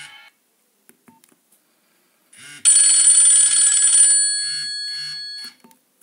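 Nokia 2220 slide phone's loudspeaker playing a ringtone preview: a bright, bell-like ringing tone starts about two and a half seconds in, holds loud for a second and a half, then fades and stops about five and a half seconds in. A couple of faint clicks come before it.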